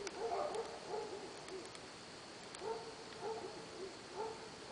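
Dogs barking in the distance, in three runs of several barks each.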